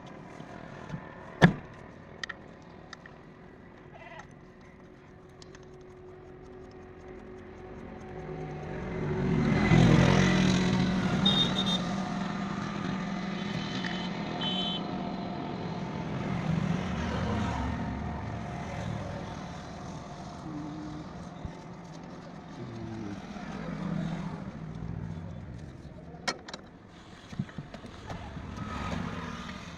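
A motor vehicle's engine swells up to a peak about ten seconds in and slowly fades, with smaller swells later. A single sharp knock sounds about a second and a half in.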